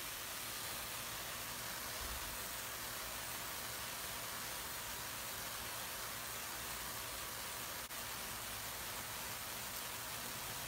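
Small solid-state Tesla coil (SSTC) running continuously, its corona and streamer discharges from a fidget-spinner ion motor making a steady hiss. The hiss breaks off for a moment about eight seconds in.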